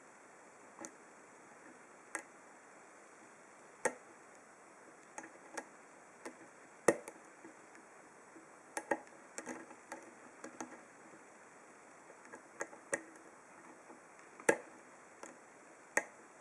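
Brass pin-tumbler padlock being picked with a thin steel hook pick under tension: small, sharp metallic clicks at irregular intervals as the pick lifts and releases the pins, sometimes two or three close together.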